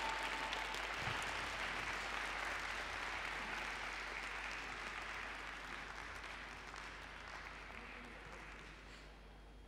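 Audience applauding, the applause dying away gradually over several seconds.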